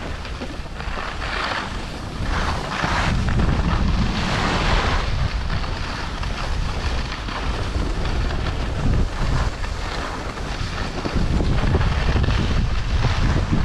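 Wind buffeting the microphone of a camera moving downhill on a ski run, with the hiss and scrape of edges sliding over packed, groomed snow swelling and fading with each turn.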